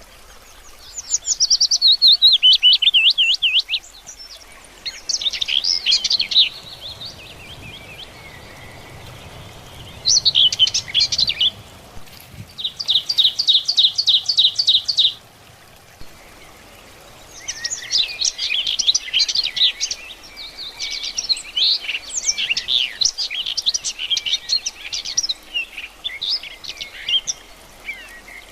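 A songbird singing in bursts of rapid, high, repeated notes separated by short pauses. The phrases vary: a falling series of notes, then a fast even trill of about ten notes a second, then longer, more varied warbling near the end.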